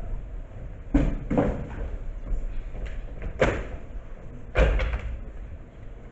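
Four dull thumps on a wooden stage floor as cardboard stage boxes are moved and set down: two close together about a second in, another in the middle, and the heaviest, deepest one near the end.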